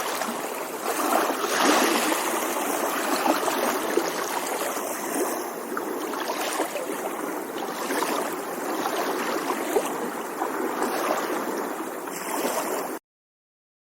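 Small waves lapping and washing, a steady water noise with gentle swells every few seconds. Near the end it cuts off suddenly.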